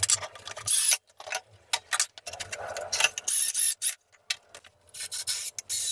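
Workshop handling noises: irregular clicks, clinks and short scraping bursts from tools and metal parts, coming in stops and starts.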